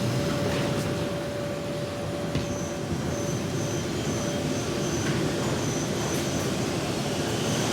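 Inside a moving metro train car: a steady rumble of the car running on the rails, with a faint high whine that comes and goes in the middle.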